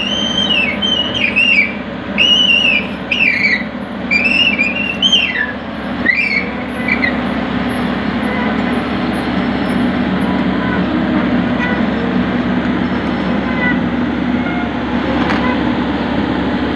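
Kobelco mini excavator's diesel engine running steadily while the machine works its hydraulics. Over the first seven seconds or so there is also a run of high, arching whistle-like chirps, about one or two a second.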